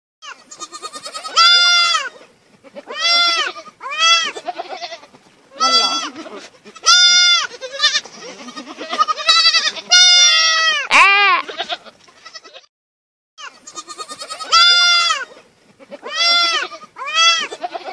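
A young goat kid bleats over and over in loud, wavering calls, about one a second, with a short break about two-thirds of the way through.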